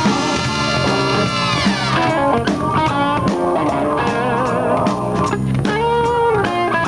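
Tejano band playing live instrumental music. A held chord glides down in pitch about a second and a half in, then a melody line with vibrato comes in over bass and drums.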